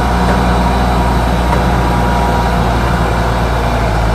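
Diesel engine of a Grove RT530E rough-terrain crane running at a steady pace, a deep, even engine note.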